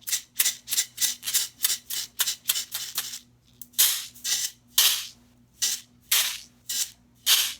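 Pin art toy being pushed and shaken, its pins sliding and clattering in a quick series of rattling swishes, about two to three a second, with a few longer ones midway.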